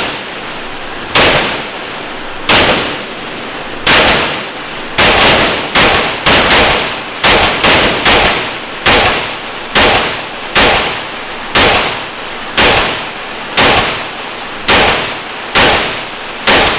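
A string of about twenty gunshots at an uneven pace, some in quick pairs half a second apart, others a second or more apart, each shot trailing off in a short echo.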